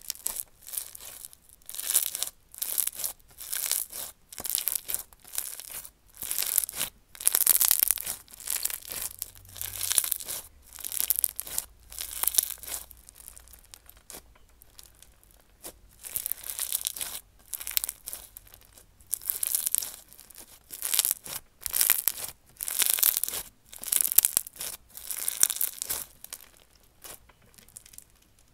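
Hands playing with slime, making repeated short crackling bursts of sound in an uneven rhythm, roughly one or two a second.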